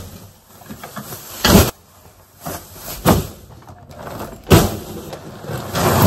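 Irregular bumps, thuds and rustles, about four in a few seconds, of someone moving about in an attic and handling stored clothes and bags.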